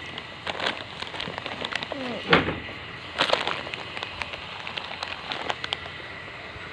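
Irregular crackling and clicking close to the microphone. About two seconds in there is a short pitched call that glides in pitch, followed by a sharper click.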